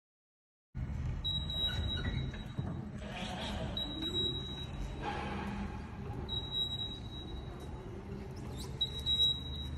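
Crown TSP6500 electric turret truck driving, with a low motor hum and rumble. Over it a thin, high-pitched steady tone beeps on and off in stretches of about a second, several times.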